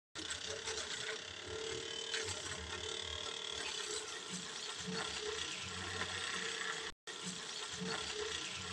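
Homemade miniature water-and-steam turbine spinning a small generator: a steady mechanical whirring rattle with a wavering hum. It cuts out for an instant about seven seconds in.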